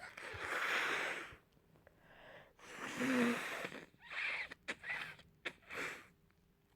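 A person blowing a congested, snotty nose hard, stuffed up with a head cold. Two long wet blows come first, the second with a brief honk, then four quick short blows.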